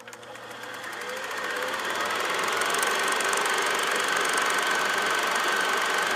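Film projector starting up and running: a rapid, even clatter that builds up over the first two seconds and then runs steadily, with a high whine.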